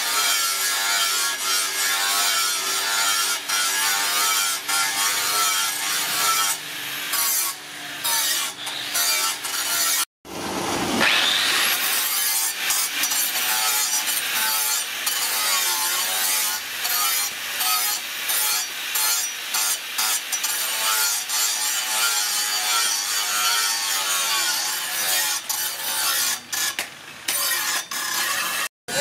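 Angle grinder with a flap disc running under load against the steel of an old cleaver blade, sanding off rust down to bright bare metal; the motor's whine wavers as the disc is pressed and eased. The sound cuts out briefly about ten seconds in and again just before the end.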